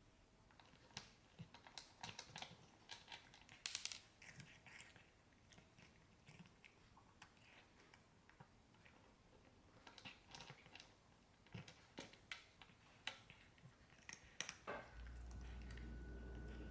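Faint, irregular crunching clicks of a cat chewing dry kibble. About fifteen seconds in, a steady low hum starts.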